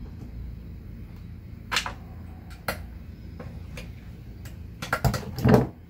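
Metal clicks and clacks of pliers working the pins and retaining clips on a UFP A-60 brake actuator. Two single clicks early on give way to a quick cluster of louder clacks near the end, over a low steady hum.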